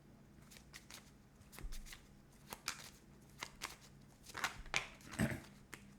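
Tarot cards being handled and shuffled: a run of irregular soft rustles and light snaps, getting busier in the second half, with one duller knock about five seconds in.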